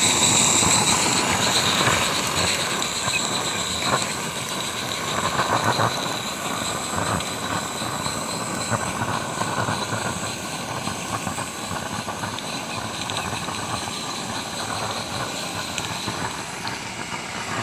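Accucraft Edrig gas-fired live-steam garden locomotive running along its track with a steady hiss of steam, louder at first and easing off.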